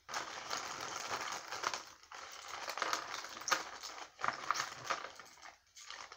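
Small plastic parts bags and Lego pieces being handled: light rustling and crinkling with small clicks, pausing briefly about two seconds in and again near the end.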